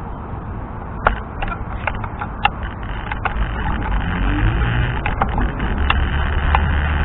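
Wind and road noise on a helmet-mounted microphone during a scooter ride, a steady rush heaviest in the low end, with scattered sharp clicks and ticks from about a second in.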